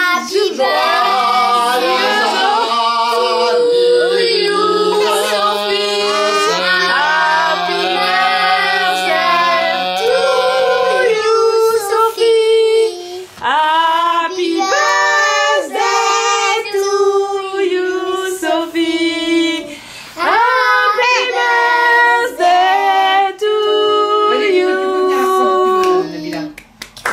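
Family voices, women and children together, singing a birthday song to a child, with a deeper voice joining in the first half. The song comes in phrases with brief pauses.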